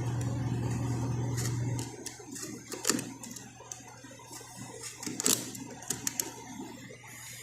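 A small motor hums steadily and stops about two seconds in, followed by scattered light clicks and taps, the sharpest about three and five seconds in.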